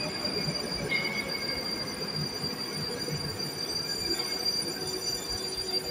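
Moskva-2020 metro train pulling into the station and running slowly along the platform, its wheels rumbling on the rails. A high whine falls in pitch over the first second as the train slows, above a steady higher tone.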